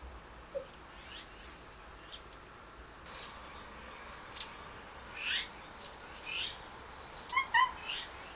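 Birds chirping in short, scattered calls over a steady background hum. The loudest is a quick pair of pitched notes near the end.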